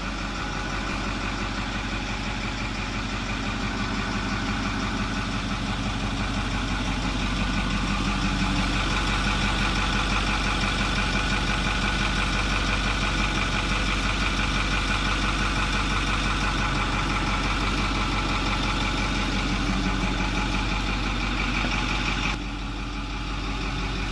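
Ford 6.4-litre Power Stroke turbo-diesel V8 idling steadily, running again now that air has been purged from the fuel system after the electric fuel pump fault. The level drops suddenly near the end.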